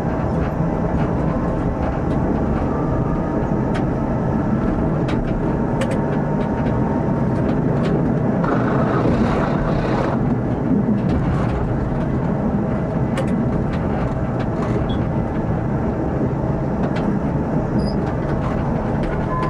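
Tram running along snow-covered track, heard from inside the driver's cab: a steady rumble of wheels on rails and motors, with scattered sharp clicks.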